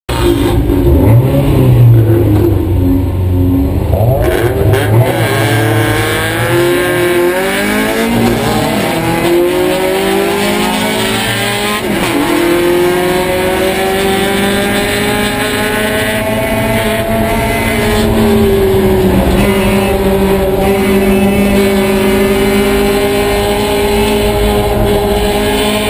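Race-prepared 1999 Mazda Miata's 1.8-litre four-cylinder engine heard from inside the car, held at steady revs at first, then accelerating hard away from the race start. The revs climb and fall back at upshifts about twelve and eighteen seconds in, with other Miatas' engines around it.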